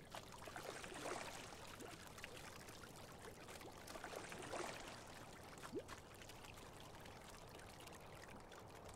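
Faint water sounds of a sculling boat: oar blades swishing and splashing in the water, swelling about a second in and again about four seconds in.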